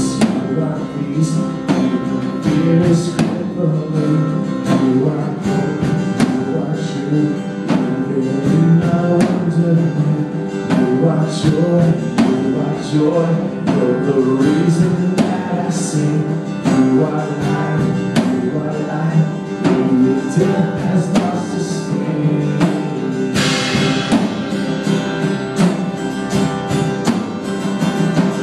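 Live worship band playing a song: electric and acoustic guitars, electric bass and drums, with a lead voice singing over them. The drums get brighter and busier with cymbals about 23 seconds in.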